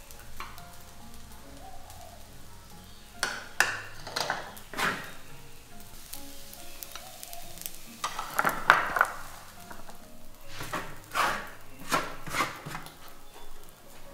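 Wooden spatula scraping fried rice out of a large wok and dropping it into bowls, in three bunches of scrapes and knocks, over a faint sizzle from the hot pan.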